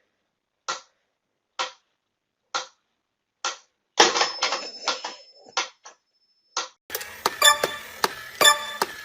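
A steady ticking, one sharp tick about every second, with dead silence between the ticks. A jumble of noises with a thin high tone takes over about four seconds in, and near the end comes a busier stretch of quick clicks.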